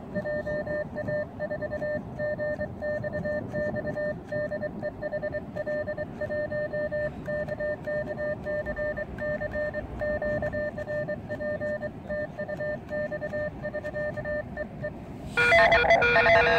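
Morse code sent with a paddle key and heard as the Elecraft KX2 transceiver's sidetone: a steady beep of about 600 Hz keyed on and off in dots and dashes, sending the "73" sign-off that closes a CW contact. About a second before the end the beeping stops and louder guitar music cuts in.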